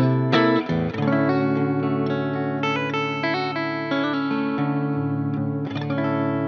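Electric guitar, a Fender American Ultra II Stratocaster HSS played through an amp-simulator plugin with delay and reverb. A few chords are strummed in the first second, then chords ring with changing notes, and one more strum comes near the end and is left to ring.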